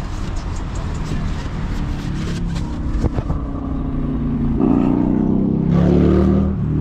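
Car driving in slow highway traffic: steady engine and road noise, with a few sharp clicks about three seconds in and a louder pitched sound building over the last two seconds.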